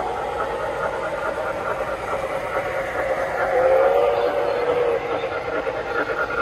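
O-gauge three-rail model freight train rolling past on the track: a steady running noise of wheels on rail, with a louder tone swelling for about a second and a half near the middle.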